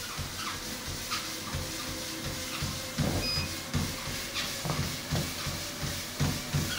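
Master F-10 motorised treadmill running with a steady faint whine, feet thudding on the moving belt. The footfalls get much louder about three seconds in, coming two or three a second.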